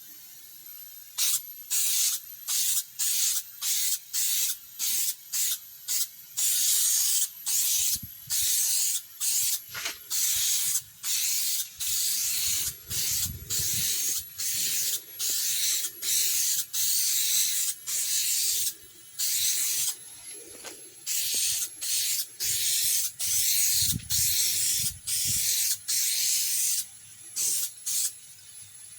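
Primer being sprayed along the edge of a steel car door skin in many short hissing bursts, about one a second, each lasting a second or less.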